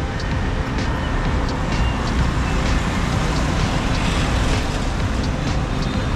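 Steady city street traffic noise, an even wash of passing vehicles with a strong low rumble.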